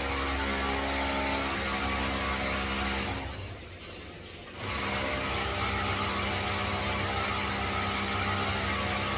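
TIG welding arc on stainless steel: a steady buzzing hiss. It cuts out about three seconds in and starts again a second and a half later.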